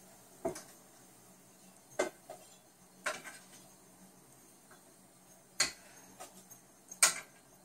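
A utensil knocking and clinking against a metal pot and a dish as cooked ravioli are lifted out and plated. There are about six separate sharp clinks, spread out, with quiet between.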